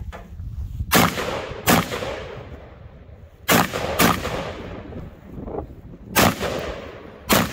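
Six shots from an AR-style rifle, fired in three pairs about two and a half seconds apart, each shot a sharp crack followed by a short echoing tail.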